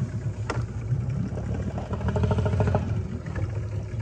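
Motor of a small boat running steadily. There is a short sharp click about half a second in.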